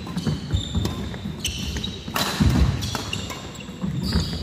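Doubles badminton rally: rackets striking the shuttlecock with a series of sharp hits. Between the hits come short high shoe squeaks on the court floor and low thuds of feet landing, with the loudest hit a little past the middle.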